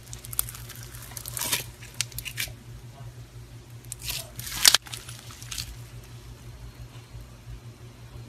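Yellow foam-bead slime (floam) being squeezed and stretched by hand: crackling and squishing as the beads rub and the slime pulls apart, with louder bursts about a second and a half in and just before five seconds, the second cutting off sharply. A steady low hum lies underneath.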